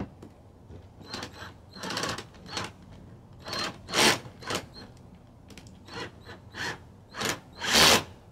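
A self-tapping screw being driven into the plastic rear diffuser and bumper: about a dozen short bursts of screwing noise, stop-start, loudest about four seconds in and just before the end.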